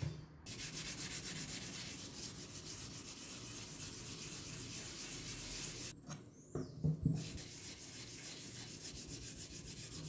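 Hand sanding a flat black clock plate: fast back-and-forth strokes of abrasive over its surface, a continuous scratchy hiss. It stops briefly about six seconds in, with a couple of light knocks as the piece is shifted on the wooden bench, then resumes.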